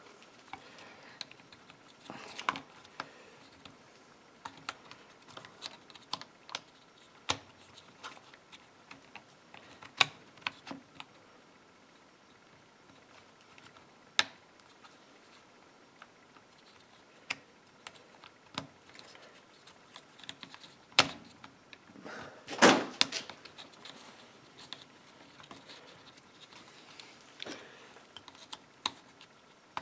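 Small hard-plastic clicks, taps and knocks as chainsaw housing parts, the stop switch and choke pieces are handled and pressed into place, irregularly spaced, with a louder clatter about two thirds of the way through.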